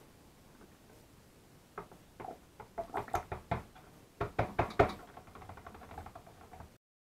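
Stick blender's head knocking and clattering against a plastic mixing bowl as it is worked through raw soap mixture: a run of irregular knocks, loudest between about three and five seconds in, then quicker lighter ticks. The sound cuts off suddenly near the end.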